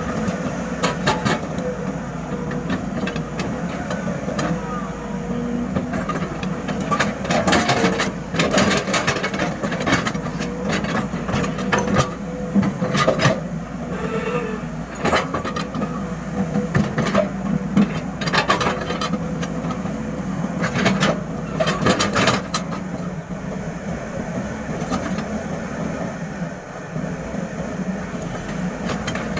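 SANY SY210C-9H excavator's diesel engine running steadily under load, with repeated irregular clanks and knocks of the bucket and of the load striking a dump truck's steel bed.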